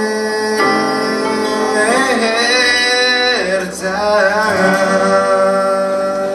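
A young man sings a Spanish-language pop ballad into a microphone, holding long notes with vibrato over instrumental accompaniment. These are the song's closing phrases.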